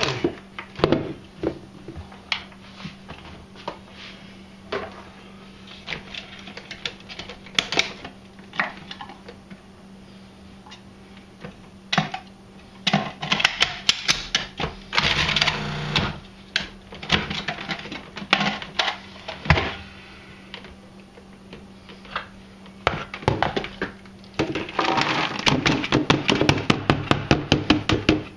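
Food processor pulsed in short bursts, its blade chopping fresh cranberries and raisins with a clattering rattle; the bursts come in clusters, with a faster run of rapid clicking near the end.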